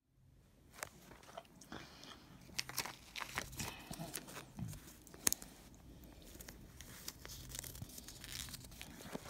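Irregular small clicks, crackles and rustles of a Kinder Joy egg's plastic tray, spoon and toy capsule being handled, starting about a second in.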